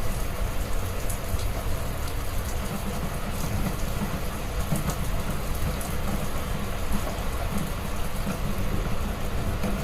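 Heavy rain falling steadily, with a deep, even rumble underneath and faint scattered drop ticks.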